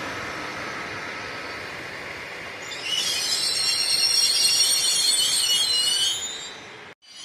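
Double-deck electric regional train rolling past at low speed, its steel wheels setting up a loud, shrill squeal of several high tones from about three seconds in. The sound cuts off suddenly near the end.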